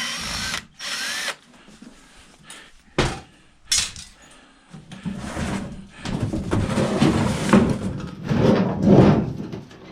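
A power drill runs briefly and stops, followed by a few sharp knocks. From about halfway through comes a stretch of irregular clattering and rattling as the old microwave's metal casing is handled and worked at.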